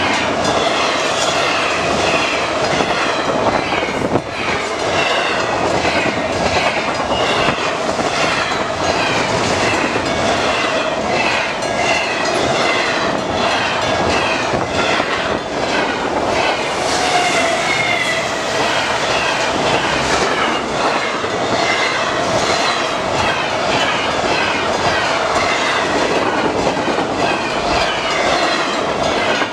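Double-stack intermodal container train passing close at speed: a steady loud rush of wheels and cars with a rhythmic clatter of wheels on the rails, and a steady ringing tone from the wheels running through it.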